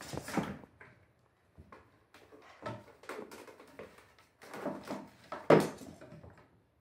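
Two cats playfighting on a carpeted cat tree: irregular bumps and scuffling, loudest about five and a half seconds in.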